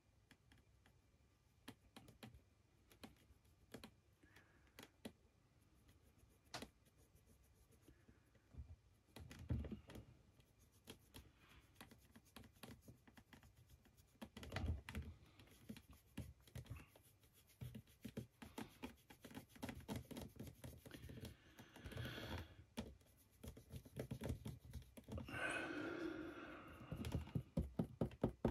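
Small clicks and taps of a paintbrush handle and fingers on a resin figure and the workbench, with a couple of soft thumps. Near the end, a short scraping rustle as the brush is worked on the palette.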